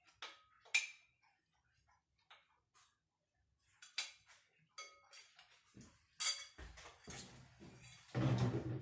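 Metal spoon clinking against a ceramic soup bowl while eating, a series of light separate clinks, some ringing briefly. A louder, fuller sound comes near the end.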